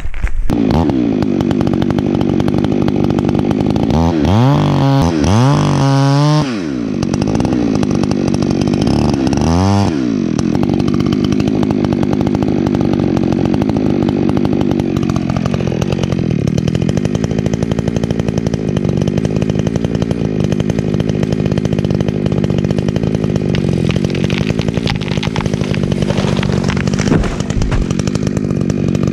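Two-stroke chainsaw running, revved up and down sharply twice in the first ten seconds, then held running steadily at speed with small changes in pitch.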